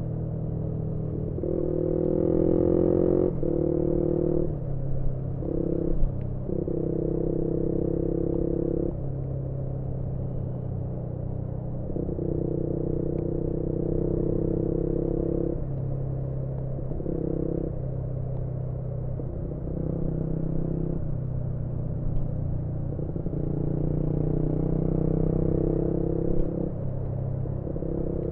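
Yamaha MT-125's single-cylinder engine with an aftermarket GPR exhaust, heard onboard while riding, its note changing in steps every few seconds as the throttle is opened and closed through bends.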